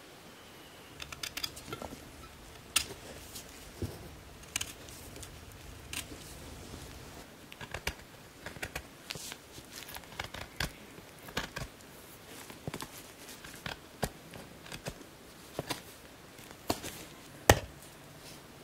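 A knife whittling a wooden stake: irregular sharp cutting snaps and scrapes, roughly one every half second to a second, with a louder knock near the end.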